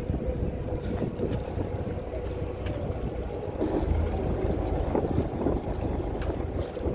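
Wind buffeting the microphone: a steady low rumble with a faint steady hum through it, and two light clicks about two and a half and six seconds in.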